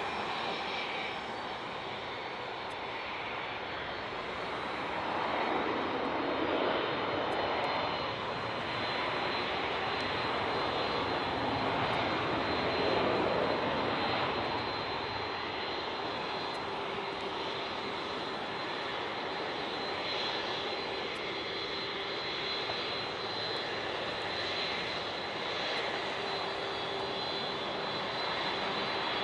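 Boeing 767's twin turbofan engines at taxi power: a steady jet whine with a thin high tone held throughout, over a rushing noise that swells louder twice, about five to seven seconds in and again around thirteen seconds.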